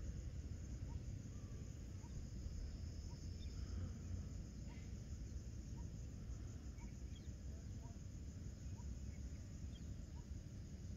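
Evening outdoor ambience: a steady, high, pulsing insect chorus, with a short call repeated about every two-thirds of a second and a few faint bird chirps, over a low steady rumble.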